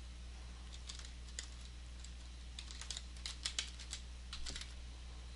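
Quiet typing on a computer keyboard: a run of light keystrokes that grows quicker in the second half, over a faint steady low hum.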